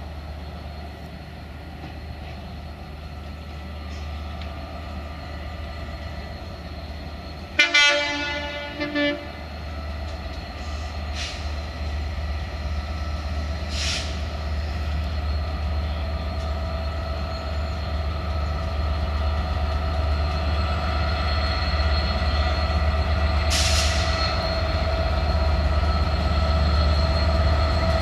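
Train sounding its horn in two short blasts about eight seconds in, over the low rumble of the train, which grows steadily louder as it draws near. A few short hisses are heard later.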